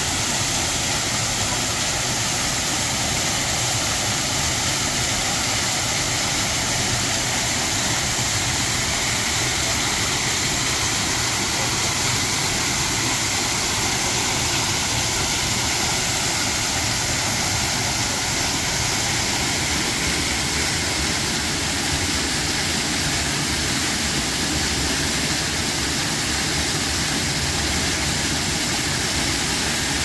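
Small stream waterfall, a few metres high, falling over a rock ledge into a shallow pool: a steady rush and splash of water.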